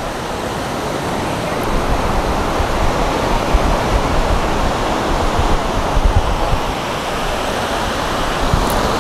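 Steady rush of ocean surf on a sandy beach, with small waves breaking, mixed with wind buffeting the microphone as a low, uneven rumble.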